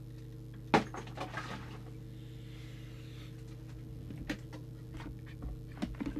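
Scattered clicks and light taps of hands handling the CB radio's chassis and wiring, the sharpest about three-quarters of a second in, over a steady low electrical hum.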